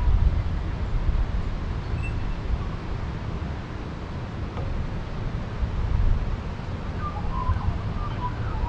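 Outdoor ambience: a low, gusty rumble with a few faint bird chirps about two seconds in and again near the end.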